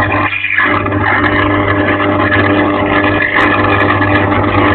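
A steady mechanical hum with an engine-like rumble, holding several steady tones. The middle of the sound drops out briefly about a third of a second in.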